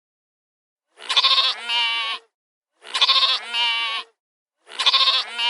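Sheep bleating three times, the same call repeated about every two seconds; each bleat wavers at the start and then holds steady.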